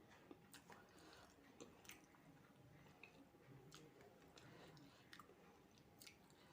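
A person chewing a mouthful of fried rice and chicken curry, faint, with scattered soft mouth clicks.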